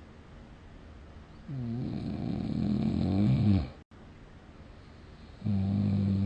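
A sleeping person snoring. One long snore of about two seconds builds and then cuts off suddenly, and after a pause a shorter snore with a steady pitch starts near the end.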